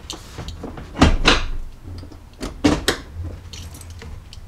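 Automotive floor carpet being tugged and dragged up around the gear shifter. It makes two loud rustling pulls with a low knock, about a second in and just under three seconds in, and lighter rustling in between.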